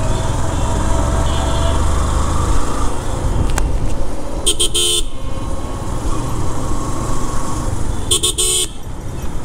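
Steady low rumble of a motorcycle riding in city traffic, engine and wind noise together, with two short vehicle-horn toots, one about four and a half seconds in and one about eight seconds in.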